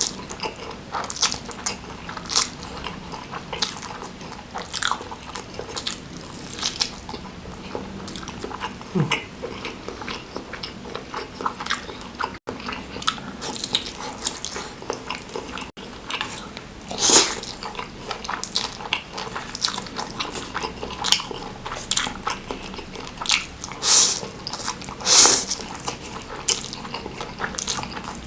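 Close-miked mouth sounds of a person eating spicy noodles and meatballs: irregular wet chewing clicks and smacks, with a few louder bursts near the middle and toward the end.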